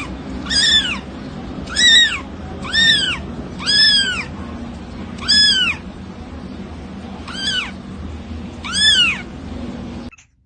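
Young kitten mewing: about eight short, high mews, each rising then falling in pitch, roughly a second apart.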